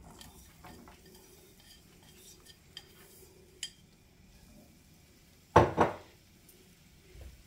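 Diced raw potatoes poured from a ceramic bowl into a nonstick frying pan, with soft rustling and a few light clicks of the bowl on the pan. About five and a half seconds in comes a sharp double clatter of dishware, the loudest sound.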